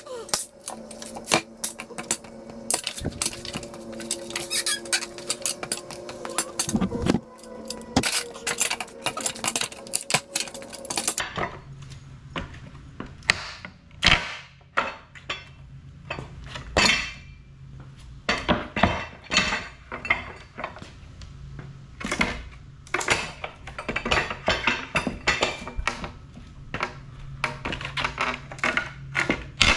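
Metal pallet buster pry bar clanking and knocking against a wooden pallet as deck boards are levered off, with many irregular sharp knocks and metallic clinks.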